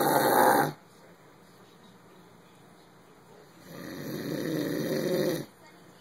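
Snoring: one loud snore cuts off shortly after the start, then after a pause of about three seconds a second long snore swells over almost two seconds and stops abruptly.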